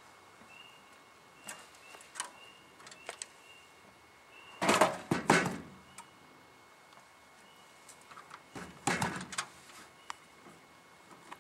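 Handling noise from a burnt strobe light being pulled apart: scattered clicks, and two bursts of rattling and scraping about five and nine seconds in.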